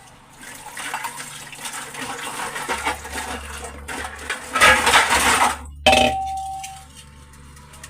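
Metal dishes and utensils clattering and clinking as they are handled for washing at a kitchen sink, louder in the middle. Near the end one metal vessel is struck and rings clearly for about a second.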